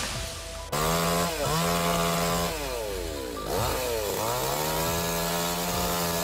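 Two-stroke chainsaw running at high speed, starting abruptly. The engine note drops and climbs back twice as the revs dip and recover, then holds steady.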